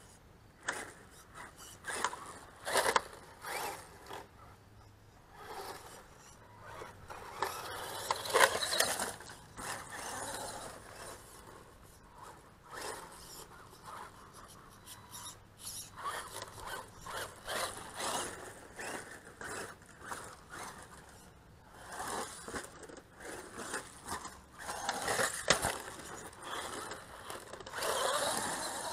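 RC monster truck tearing around in loose dirt: tires scraping and spitting dirt in irregular bursts as it accelerates, turns and slides, with sharp knocks from bumps and landings. The loudest knocks come about 3, 8.5 and 25 seconds in.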